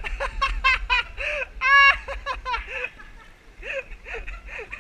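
A person laughing hard in quick repeated bursts, with a high drawn-out squeal of laughter about two seconds in; softer, lower laughter follows near the end.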